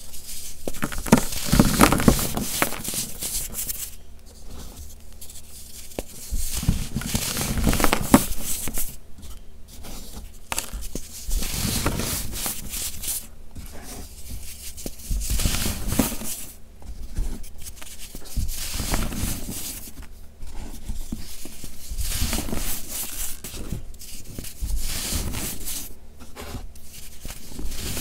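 Pressed blocks of gritty baking soda being squeezed and crumbled by hand, crunching in a series of bursts a couple of seconds long, a few seconds apart.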